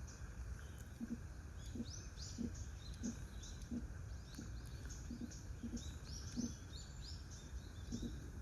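Small birds chirping: many quick, short, high notes in rapid series, over a steady low background rumble, with low short sounds repeating about once a second.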